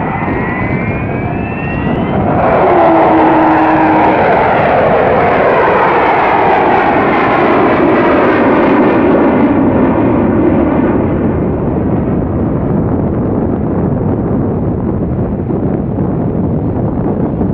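Avro Vulcan XH558's four Rolls-Royce Olympus turbojets as the delta-wing bomber flies past overhead: loud jet noise with a rising whine over the first couple of seconds. The noise swells about two seconds in, stays at its loudest for several seconds, then eases off as the aircraft banks away.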